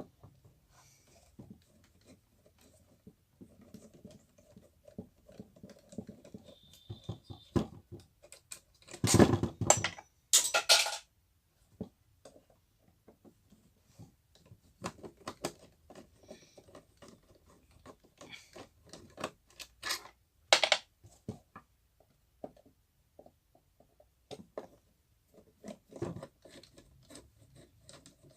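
Hand tools clicking and tapping on metal while the four nuts holding a wall fan motor are undone, with scattered small clinks and a few louder knocks about nine to eleven seconds in and again near twenty seconds.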